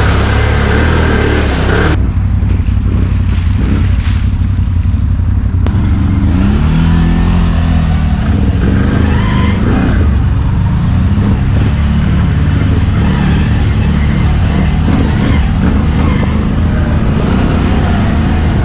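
ATV engine running steadily as the quad is ridden, heard from the rider's seat, its note shifting with the throttle. A loud hiss over the engine cuts off sharply about two seconds in.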